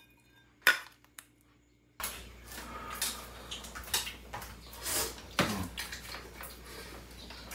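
A single sharp metal clink just under a second in, then, from about two seconds in, the light clatter of cutlery against stainless steel bowls as people eat noodles at a table.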